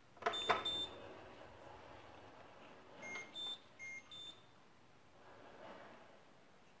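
Electronic control-panel beeps from a Karaca Hatır Turkish coffee machine: two short beeps with a couple of sharp clicks about half a second in, then four short beeps at two different pitches around three to four seconds in.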